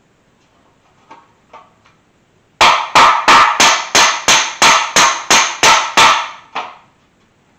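A hammer striking the flange of a stamped-steel valve cover against a backing piece: a couple of light taps, then a quick run of about a dozen sharp metallic blows at roughly three a second, ending with a lighter one. The blows flatten the lip around the bolt holes, which over-tightened bolts had bent down.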